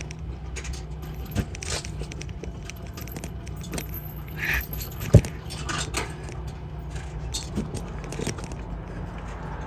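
Light metallic jingling and clicking over a steady low rolling rumble, as of a hand-pulled cart rattling along a rough track, with one sharp knock about five seconds in.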